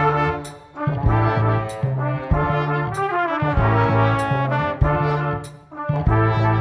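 A student trumpet ensemble playing in parts, in short phrases, over an electric bass line and a drum kit with regular cymbal hits.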